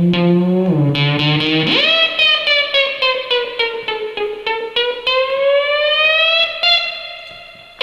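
Amplified instrument music: a few low notes, then a long held note about two seconds in that slowly bends down in pitch and back up again before fading out near the end.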